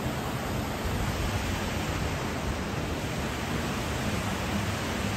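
Steady rushing of a rocky mountain river flowing over stones, an even noise with no breaks.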